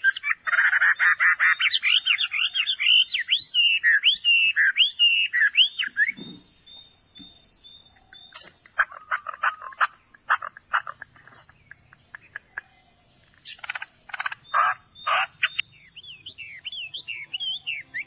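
Songbirds singing and calling in woodland: a fast run of rising and falling whistled chirps, then a quieter stretch, then bouts of sharp calls and more whistled notes near the end, over a steady high hiss.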